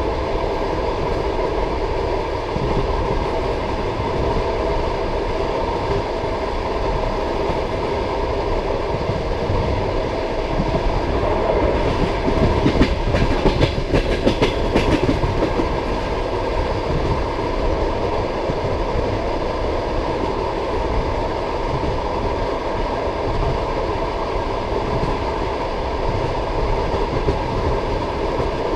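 Passenger train carriage wheels running on the rails with a steady, deep clickety-clack. For a few seconds in the middle there is a louder, denser run of sharp knocks, typical of the wheels crossing station points.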